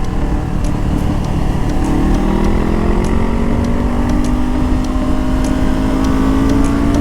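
Honda CBR500R's parallel-twin engine pulling under steady acceleration, its pitch rising slowly from about two seconds in, over a constant rushing noise.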